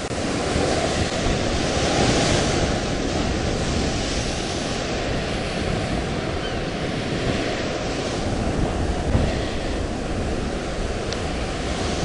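Heavy storm waves breaking and washing over rocks below a cliff, a steady rush of surf, with strong wind blowing across the microphone.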